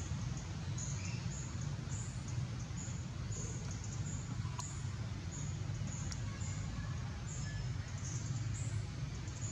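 Steady low outdoor rumble with short, high-pitched chirps repeating about twice a second.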